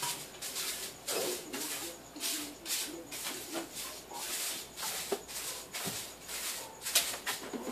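A broom swept quickly across a kitchen floor: a run of rapid, repeated bristle swishes, about three strokes a second.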